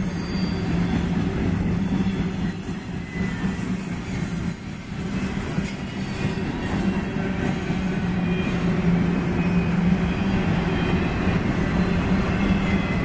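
Freight cars of a passing manifest train (tank cars, hoppers and autoracks) rolling by at speed: steel wheels rumbling steadily on the rails.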